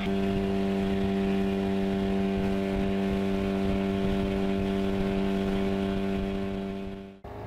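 Yamaha 9.9 hp outboard motor running at a steady speed with the boat under way. The sound cuts off abruptly near the end.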